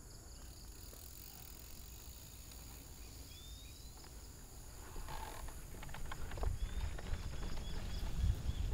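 Steady high-pitched insect drone, like crickets, with a few short chirps. About five seconds in, a low rumble with irregular knocks and rattles builds as a mountain bike rolls over rough trail.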